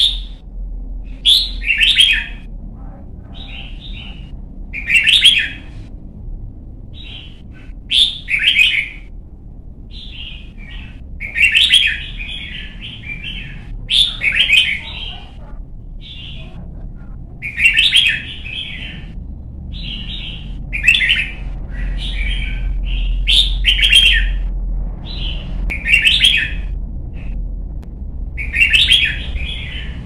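Red-whiskered bulbul singing, short bright warbled phrases repeated every second or two, over a steady low rumble in the background.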